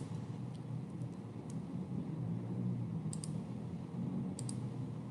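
Computer mouse clicks: a few single clicks, then two quick double clicks about a second apart, over a low steady hum.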